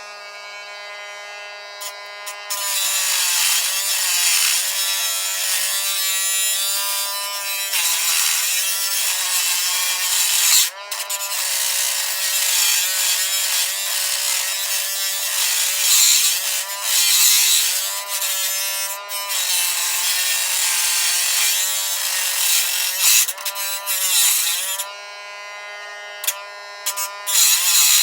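High-speed rotary tool with a cut-off wheel grinding into a Master Lock padlock's shackle. The motor's whine dips in pitch each time the wheel bites into the metal, over a harsh grinding noise, and it eases off briefly a few times.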